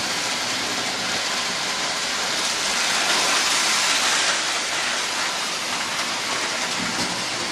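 Electric model train running around its track, a steady whirring rumble of motor and wheels on the rails that grows a little louder about three to four seconds in.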